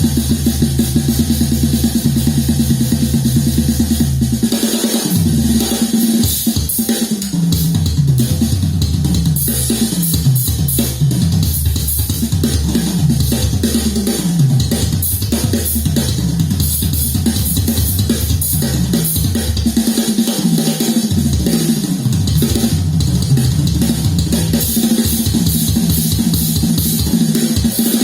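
A drum-kit recording played back loud through Infinity Kappa 7 hi-fi loudspeakers: bass drum and snare with repeated rolling fills that step down in pitch, and cymbals that come in stronger about a third of the way through.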